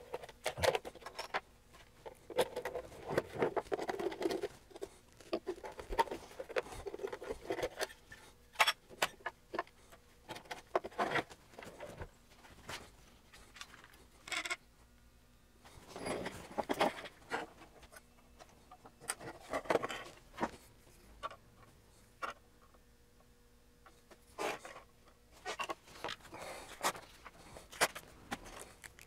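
The metal case of an HP 8447B amplifier being taken apart with a screwdriver: irregular clicks, knocks and small metallic rattles of screws and sheet-metal panels, with stretches of scraping as the panels are handled.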